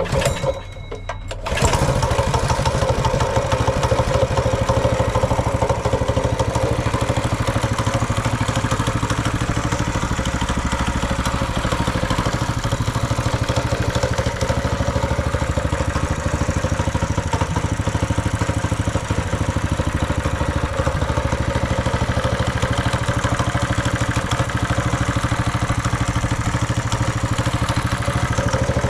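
Honda GX160 single-cylinder four-stroke engine on a mini bike catches about a second and a half in and then runs steadily, preceded by a few light metallic clinks.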